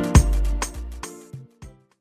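African pop love song with a drum beat, fading out after about a second and ending in silence near the end.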